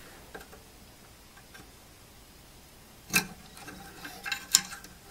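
Screwdriver clicking and tapping against metal parts inside a power supply's chassis while getting at the fuse: a sharp click about three seconds in, then a quick cluster of small clicks.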